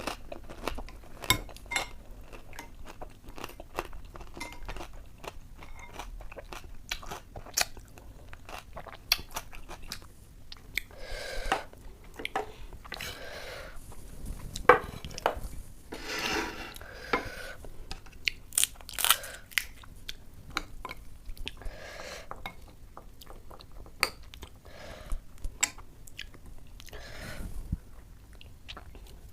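Close-up eating sounds of crisp puchka (panipuri) shells filled with ghugni being bitten and chewed: many sharp crunches with longer stretches of chewing between them.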